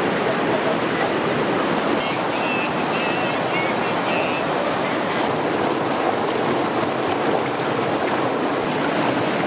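Mountain river rushing steadily, a constant hiss of fast-flowing water.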